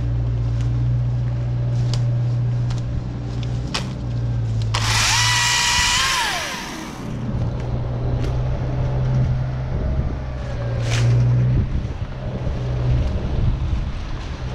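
Husqvarna T536LIXP battery chainsaw run for about two seconds about five seconds in: a high electric motor whine with chain noise, falling in pitch as it winds down. Under it runs a steady low drone, with a few sharp snaps of branches being handled.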